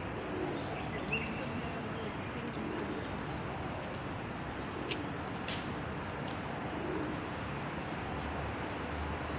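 Soft low animal calls, each rising and falling, a second or more apart, over steady background noise, with a short high chirp about a second in and two sharp clicks around five seconds in.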